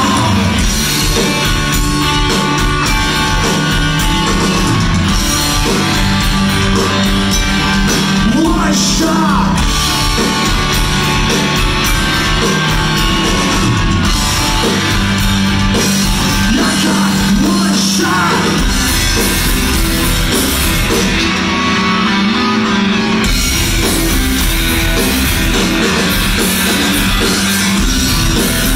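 Loud live post-hardcore rock band playing: guitars, bass and drums with sung vocals, heard from among the crowd.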